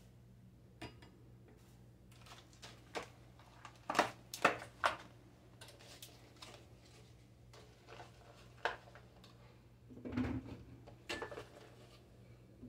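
Scattered clicks, knocks and clatter of kitchen items being handled and set down on a countertop, including a clear plastic berry clamshell, with the loudest knocks about four seconds in and again near ten seconds. A faint steady low hum runs underneath.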